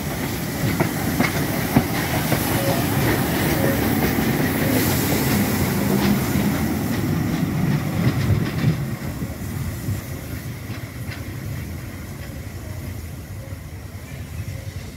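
DB class 23 steam locomotive running light past and away tender-first, its wheels clicking over the rail joints. The sound stays loud for the first half and fades steadily as the engine draws away.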